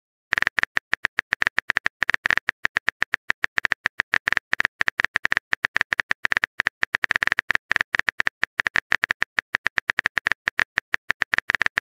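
Phone keyboard typing clicks: rapid, uneven taps, several a second, as a message is typed out.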